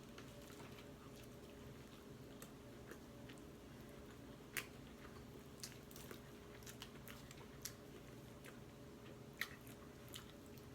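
Faint close-up chewing of rock lobster tail meat: scattered wet mouth clicks and smacks, two of them sharper, about four and a half and nine and a half seconds in, over a low steady hum.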